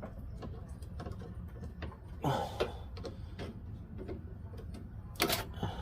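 Small clicks and light knocks of hands and tools working at a snowblower's carburetor and fuel line, over a low steady hum. Two louder clattering knocks come about two seconds in and near the end.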